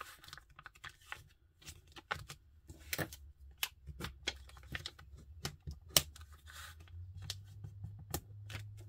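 Thin overhead-projector transparency film being folded and creased by hand: irregular crackles and sharp clicks of the plastic as the folds are pressed down, the sharpest about six seconds in. A low steady hum runs underneath.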